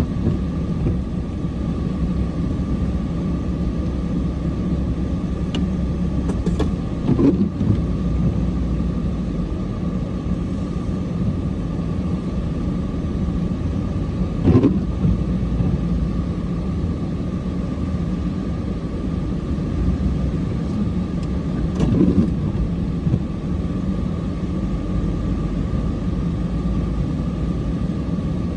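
Diesel truck engine running steadily with a low rumble and a faint high whine. A short thump or knock comes about every seven seconds.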